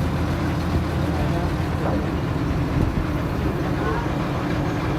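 Vishal 495 combine harvester's diesel engine running steadily at an even speed.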